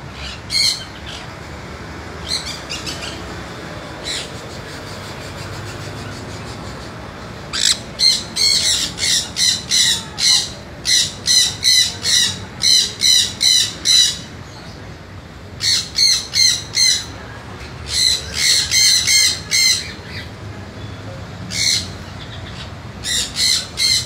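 A sun conure squawking loudly and high-pitched in runs of rapid repeated calls, about three a second, with short pauses between the runs. The first few seconds hold only a few single calls.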